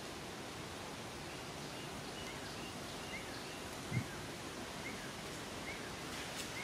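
Steady outdoor background hiss with a run of faint, short high chirps from about two seconds in, and a single low thump about four seconds in.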